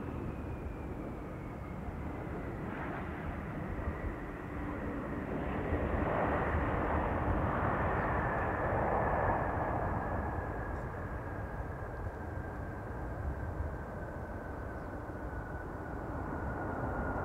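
Boeing 777 jet engines on the landing rollout just after touchdown: a steady jet roar with a high whine that falls slowly in pitch as the engines spool down. A louder rush swells about six seconds in and eases off a few seconds later, typical of reverse thrust being applied.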